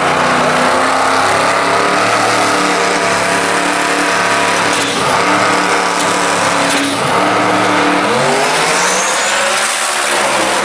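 Ford Mustang drag car's engine running loud and high on the starting line, its note holding steady with a few brief dips, then rising in pitch near the end as the car launches.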